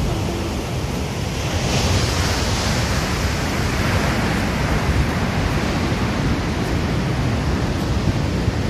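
Steady rush of sea surf breaking on the shore below, mixed with wind buffeting the microphone. The surf swells louder about two seconds in.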